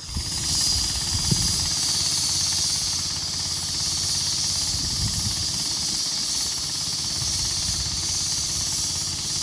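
Steady hiss of compressed air flowing through the hose and chuck into a tire being pumped toward bursting, over the low steady running of the air compressor's engine.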